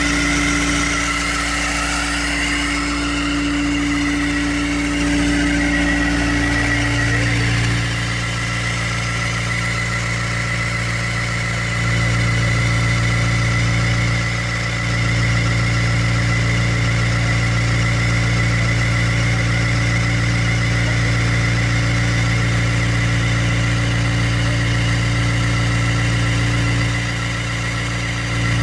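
Volvo EC55B mini excavator's diesel engine running steadily, with a steady high whine over it and a few small rises and dips in level.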